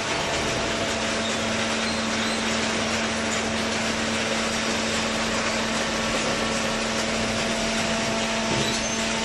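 Kraft paper baler machine running: steady mechanical noise with a constant hum, which wavers briefly near the end.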